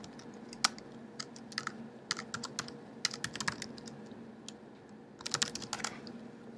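Typing on a computer keyboard: short bursts of quick keystrokes separated by brief pauses.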